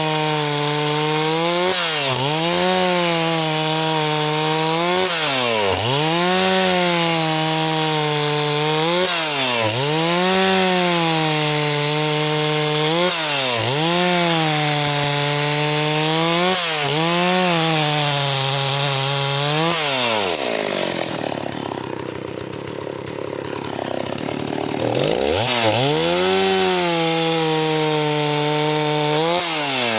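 Stihl 038 two-stroke chainsaw cutting wood, its engine pitch dipping and recovering about every second and a half as the chain loads in the cut. About two-thirds of the way through it drops to a low idle for about four seconds, then revs back up and carries on cutting.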